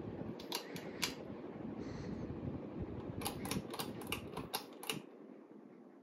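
Pull-chain switch clicks on a Bahama Hugger ceiling fan: a few clicks in the first second, then a quicker run of about eight between three and five seconds in, over the fan's steady running hum, which drops away at about five seconds.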